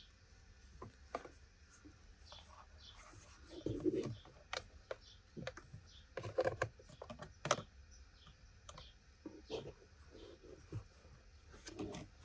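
Scattered light clicks and taps from handling, with a few duller knocks about four and six seconds in.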